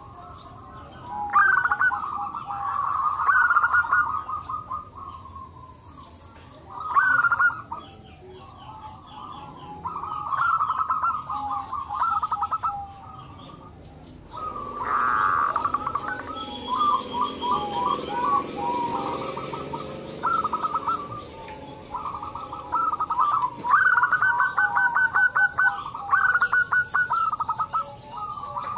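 Zebra doves (perkutut) cooing in rapid staccato phrases, several birds overlapping and answering one another.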